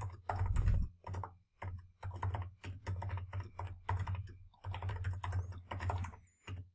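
Typing on a computer keyboard: runs of quick keystrokes with short pauses between them.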